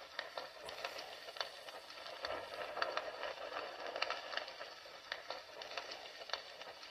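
Fire crackling: a steady hiss with sharp, irregular pops and snaps several times a second.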